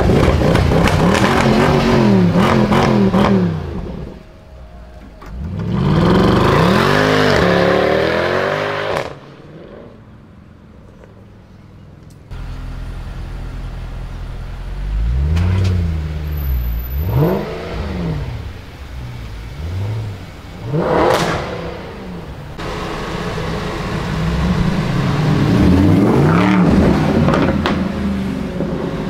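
Several Mercedes-AMG V8 cars revving their engines in turn: revs rising and falling in the first few seconds, a longer climb a few seconds later, then after a quieter stretch a few short throttle blips, one sharp rev, and more revving near the end.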